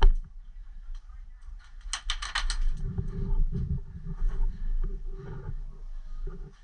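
A short full-auto burst of about seven rapid cracks from an airsoft electric rifle about two seconds in, after a sharp knock at the very start, over a steady low rumble of wind and movement on the microphone.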